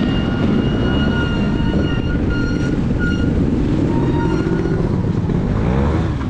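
Trials motorcycle engine running under riding load, its pitch rising and falling near the end. A thin high whine comes and goes over it.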